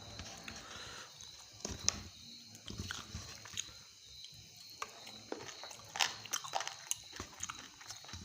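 A person chewing and biting rice and chicken close to the microphone: irregular wet clicks and mouth smacks, coming thicker from about six seconds in.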